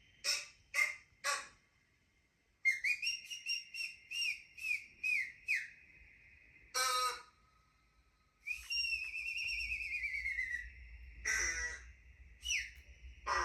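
A played sound effect of high whistles: three quick clicks, then a string of short whistled chirps with falling glides, a longer whistle that slides down in pitch about two-thirds through, and more clicks between.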